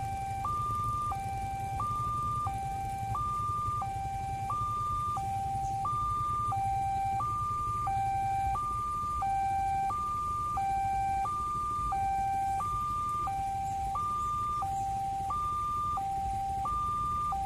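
Railway level-crossing warning alarm sounding, an electronic two-tone signal alternating steadily between a high and a low note, about one note every two-thirds of a second. The crossing is activated, warning that a train is approaching.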